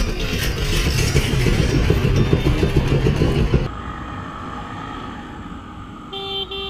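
Loud rumbling noise on a motorcycle helmet camera that cuts off suddenly about three and a half seconds in, giving way to a quieter motorcycle on the move. Near the end a horn beeps twice in quick succession.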